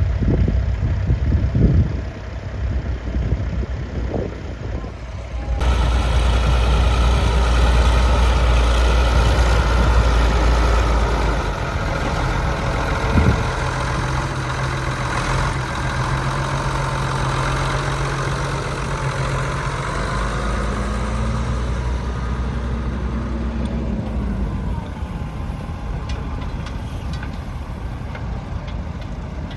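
Tractor engines running steadily at a low, even pitch, the sound changing abruptly about six seconds in and again near the end.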